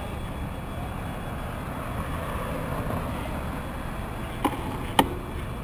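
Wind rumbling on the microphone of a moving bicycle, steady throughout, with two sharp clicks about half a second apart near the end, the second louder.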